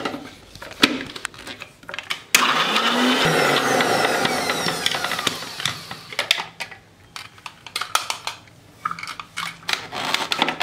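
Electric mixer grinder (mixie) grinding mint leaves, green chilli and ginger to a paste in its steel jar. The motor starts about two seconds in, runs for about four seconds and then winds down. Clicks and knocks come from the jar being set on the base and handled.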